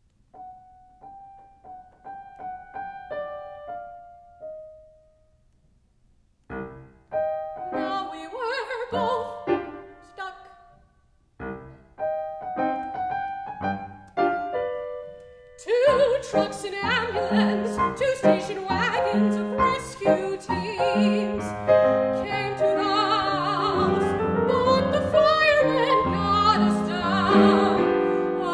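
Grand piano playing alone, first a few quiet, sparse notes, then after a short pause louder chords in broken phrases. About halfway through, a mezzo-soprano's operatic singing comes in over the piano and carries on.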